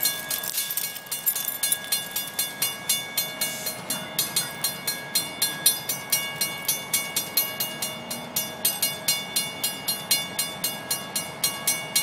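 Railway level crossing warning bell ringing in a fast, even rhythm of about three to four strikes a second, each strike ringing with the same bright tone: the crossing is activated, warning of an approaching train.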